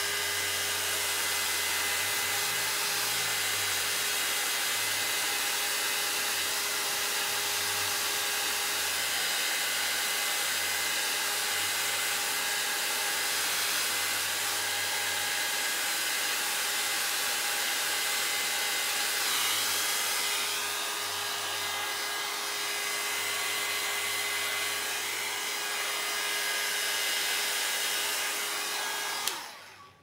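Small handheld hair dryer running steadily with an even hum, blowing on wet alcohol ink on paper to spread and dry it. It is switched off and cuts out just before the end.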